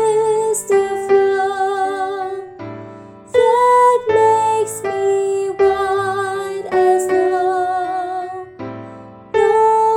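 Soprano voice singing a hymn melody in long held notes with vibrato over piano accompaniment, pausing briefly between phrases about three seconds in and again near the end.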